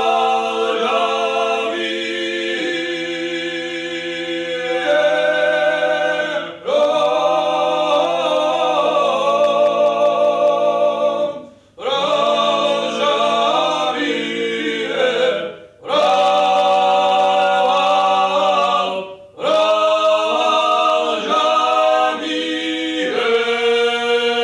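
Unaccompanied choir singing held chords in several voice parts. It sings in phrases of a few seconds, each ending with a short breath-length pause.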